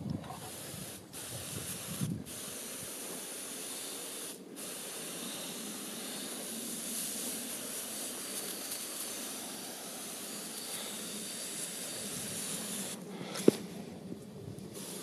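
Garden sprayer wand misting liquid P/K fertilizer onto bonsai in a steady hiss that stops briefly a few times. One sharp click near the end.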